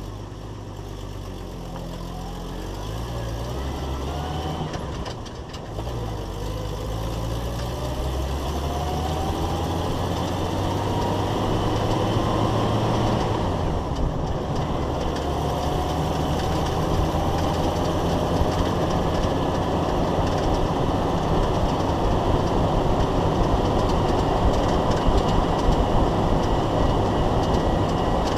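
Jeep Wrangler YJ drivetrain and road noise heard from under the chassis at the rear axle as the Jeep pulls away and gathers speed. The engine note climbs, breaks for shifts about five and fourteen seconds in, and a faint whine rises with speed, with a steady rattle over it.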